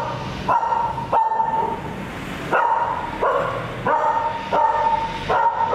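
Dog barking over and over, high-pitched barks coming roughly every two-thirds of a second, with a short pause about a second in.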